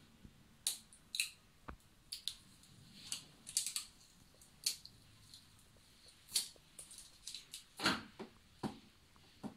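Faint, irregular light clicks and taps of hands handling the plastic front panel of a Dr. Aquaguard Magna water purifier, with a louder knock about eight seconds in.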